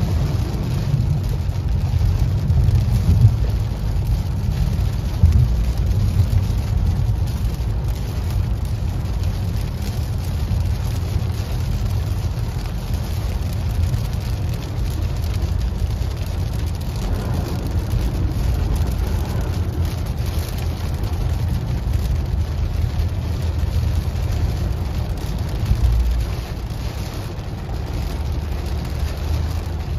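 Car driving in rain: a steady low road rumble with rain on the car.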